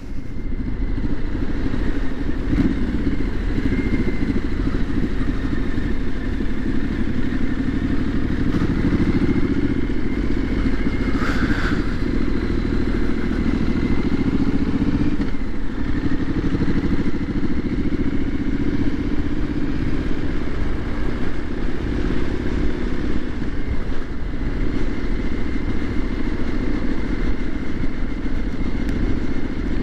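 Triumph SS 900 motorcycle engine running on the move, its note rising and falling with the throttle, over a heavy rumble of wind on the microphone. A brief higher-pitched sound cuts in about eleven seconds in.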